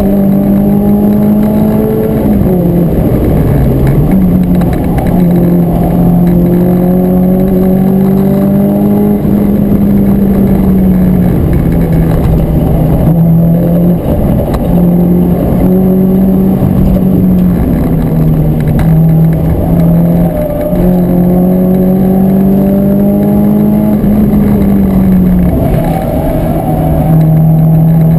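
Renault Clio 172 Cup's 2.0-litre four-cylinder engine heard from inside the cabin while lapping under power. Its note climbs slowly through each gear and drops back at the gear changes several times, with a deeper dip about three seconds in, over steady road and tyre noise.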